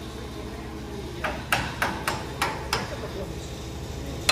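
A hammer striking, six quick blows about three a second, starting a little over a second in.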